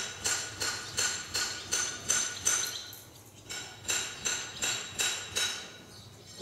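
Metal horse tack, bit and fittings, jingling in a steady rhythm of about three clinks a second, with a short break about halfway through.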